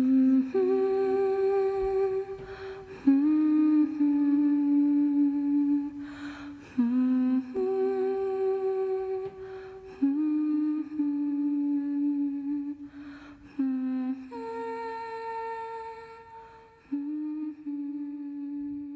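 A slow wordless vocal melody: a voice humming long held notes, each a few seconds long, stepping to a new pitch after short breaks.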